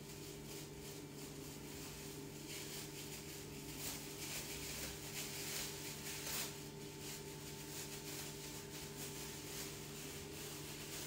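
Cooked pork being shredded into small pieces for pork floss: soft, irregular rubbing and scraping that is busiest in the middle, over a steady low hum.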